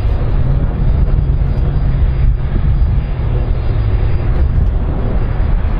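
Jet engines of an Airbus A310-304, General Electric CF6 turbofans, running as the airliner rolls along the runway: a steady, loud low rumble with a hiss above it.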